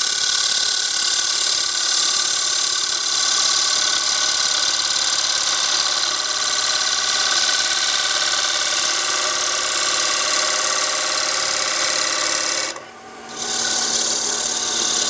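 Bowl gouge cutting the inside wall of a wooden bowl spinning on a lathe: a steady cutting noise, strongest in the high range, that breaks off briefly near the end as the tool is lifted and then resumes. The gouge is dull and due for sharpening, which makes it cut noisier.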